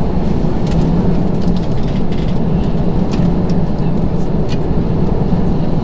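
Airbus A321 cabin noise: a steady low rumble with a constant hum band and scattered light clicks and rattles.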